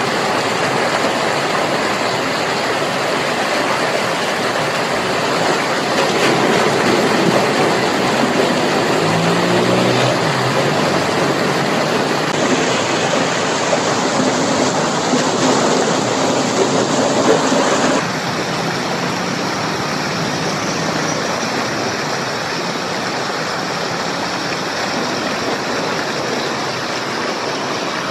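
Waterfall: a steady rush of falling water, a dense even hiss. About two-thirds of the way through it switches abruptly to a slightly quieter, duller rush.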